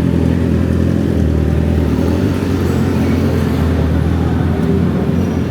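Street traffic noise: a motor vehicle engine running with a steady low rumble.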